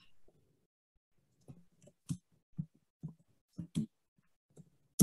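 Typing on a computer keyboard: a string of faint, unevenly spaced key clicks as a short phrase is typed.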